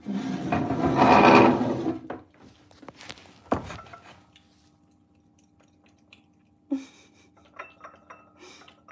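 A cat lapping yogurt from a china saucer, with a sharp click, a thump and a few small clinks of the saucer on the tile floor toward the end, over a steady low hum. A loud rushing noise fills the first two seconds.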